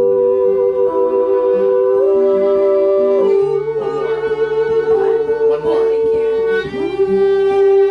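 Folk-rock instrumental passage: a fiddle holds long notes, wavering in the middle, over acoustic guitar picking.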